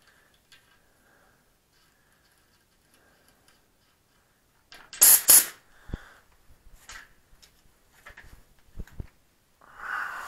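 Two quick bursts of air hissing from a road bike tire's Presta valve about five seconds in, followed by light clicks and knocks of the valve and pump head being handled.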